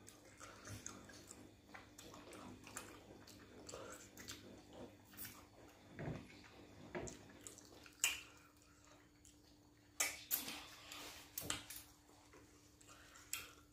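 Close-up eating sounds of people eating pounded yam and pepper soup with their hands: soft wet chewing, lip smacks and squelches, with a few louder wet smacks between about eight and twelve seconds in.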